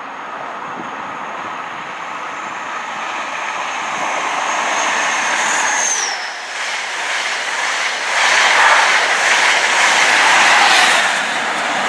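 An East Midlands Trains diesel HST (InterCity 125) passing through the station at speed. The train noise builds, a high whine drops in pitch about six seconds in as the leading power car goes by, and then the coaches rush and clatter past, loudest from about eight to eleven seconds.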